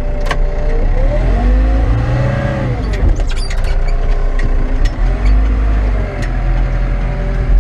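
Caterpillar 924F wheel loader's diesel engine running under work, its speed rising and falling several times, with a few sharp clanks and clicks.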